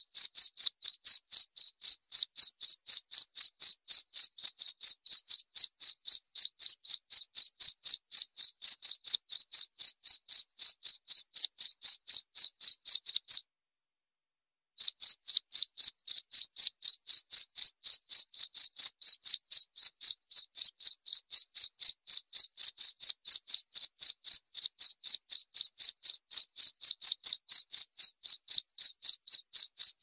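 A cricket chirping loudly in a fast, even stream of high-pitched chirps. It stops for about a second midway through, then carries on at the same pace.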